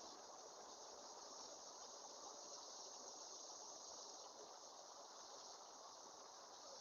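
Faint, steady chorus of night insects, with an even hiss underneath.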